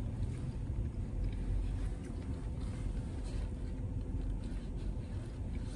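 Steady low rumble inside a parked car's cabin with the engine idling, and a few faint clicks.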